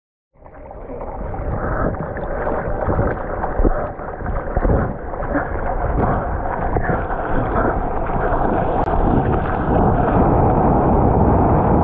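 Sea water splashing and sloshing around a board moving through the surf, with irregular splashes in the first half. From about eight seconds in it gives way to a steady rush of water and wind.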